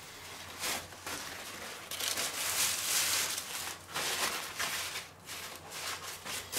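Butcher's paper and thin plastic meat wrapping rustling and crinkling in the hands as a piece of fillet is unwrapped and the paper crumpled, in uneven bursts that pick up about two seconds in.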